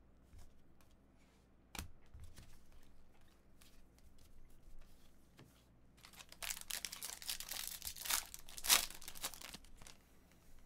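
Trading card pack wrapper torn open and crinkled, loudest from about six seconds in, after a few light clicks of cards being handled.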